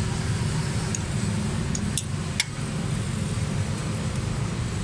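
Steady low rumble of motor vehicles running. A few sharp metallic clicks come about two seconds in, from a wrench working a rocker-arm tappet adjuster on the exposed valve gear of the stopped engine.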